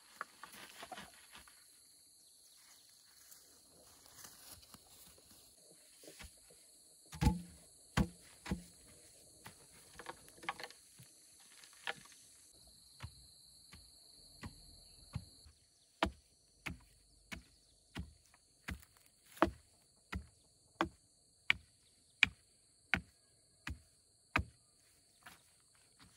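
Dull thuds of a wooden pole tamping soil around a freshly set bamboo fence post. They are scattered at first, then come steadily about once every three-quarters of a second in the second half. A faint steady insect buzz runs underneath.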